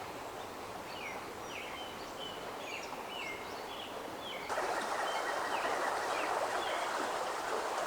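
Small songbirds chirping repeatedly with short, quick notes over woodland ambience. About halfway through, a louder steady rushing noise comes in suddenly and continues under the chirps.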